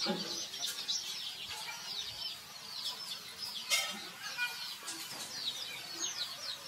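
Birds chirping steadily, a dense chorus of short, high, falling chirps. A single sharp knock comes a little past halfway and is the loudest sound.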